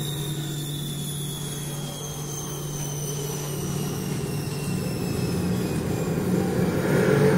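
Amplified object sounds and electronics of a contemporary percussion piece: a steady low hum over a rushing noise, with faint high whistling tones that glide slowly downward. It grows louder near the end.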